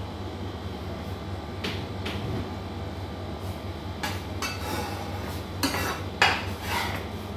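Metal kitchen utensil knocking and scraping against metal cooking pots: two light clinks about two seconds in, then a run of knocks and scrapes from about four seconds in, the loudest just past six seconds. A steady low hum runs underneath.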